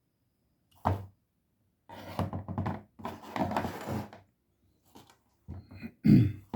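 Handling noises from working on a rubber flip-flop: a single knock, then two stretches of rubbing or scraping, then a few more knocks, the last one the loudest.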